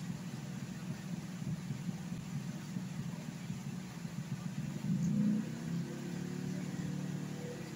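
Low, steady machine rumble with a humming note that swells about five seconds in and then fades.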